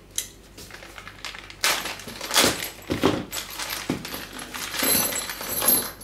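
A small plastic bag of metal furniture screws crinkling as it is opened, then the screws jingling and clinking together as they are handled and tipped out, with a few bright metallic clinks near the end.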